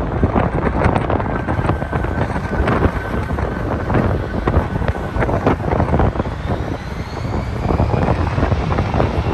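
Wind buffeting the microphone in irregular gusts over passing road traffic, with a faint rising whine near the end.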